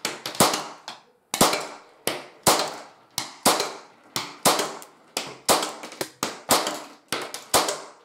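Marushin P226 model gun firing 7 mm caps in semi-auto blowback, about one shot a second: each sharp crack is followed closely by a second, lighter click and a short ringing tail.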